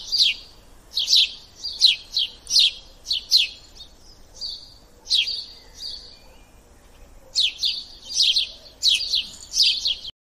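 Chipping sparrow calling with short, sharp chirps, each sweeping quickly down in pitch, about two to three a second. There is a pause of about two seconds in the middle before the chirping resumes.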